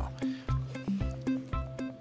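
Background music: low bass notes and higher plucked notes over a steady light beat.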